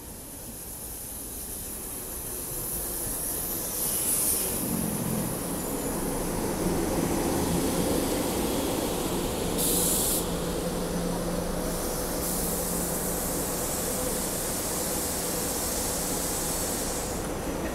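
SEPTA Regional Rail electric commuter train pulling in beside the platform and stopping. Its running noise and a low steady hum build over the first few seconds. There are short bursts of air hiss about four seconds in and about ten seconds in, and a longer hiss from about twelve seconds to near the end as the train halts and its doors open.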